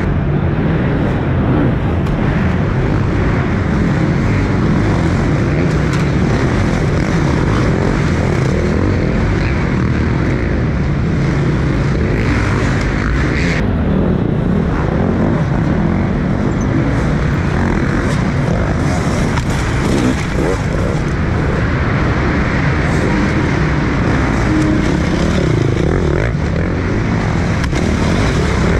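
Dirt bike engines running, a loud, steady din with no pauses.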